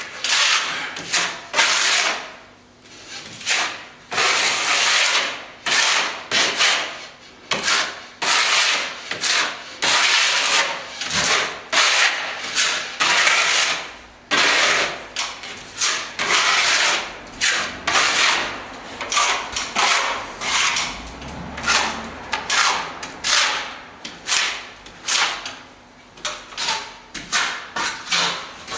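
Hand tool rubbing and scraping over plastered wall in short, uneven repeated strokes, working crack repairs filled with stopping plaster and a little lime.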